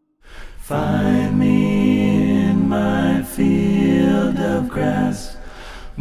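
A cappella vocal harmony: several layered voices enter a moment in and sing held chords that change every second or so.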